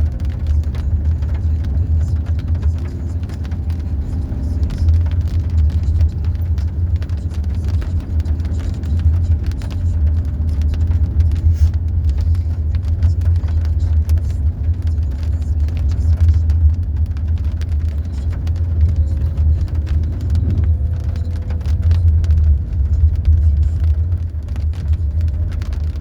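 Car driving slowly on a rough road, heard from inside the cabin: a steady low engine and tyre rumble with a faint engine hum, and many small knocks and rattles from the uneven surface.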